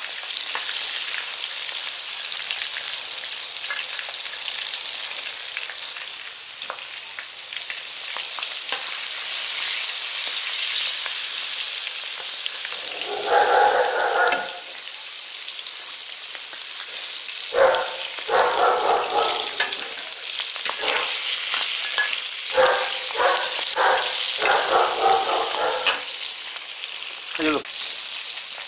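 Pork pieces deep-frying in a wok of hot oil, a steady sizzle. A metal spatula scrapes and knocks against the wok in a short burst about halfway through, then again on and off through the last third.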